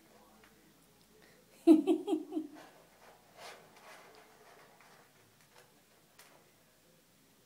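A short pulsed voice sound of four or five quick beats about two seconds in, the loudest thing here, then a few faint scrapes and clicks of a kitten moving in granular cat litter.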